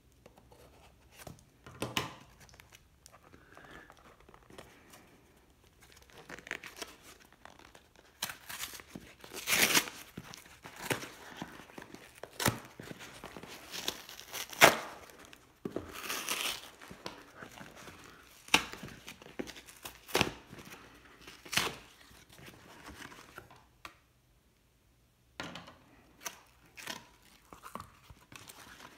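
Cardboard shipping box being torn open by hand: a string of irregular rips and crinkles, the loudest tears about a third to halfway through. The sound cuts out completely for about a second near the end.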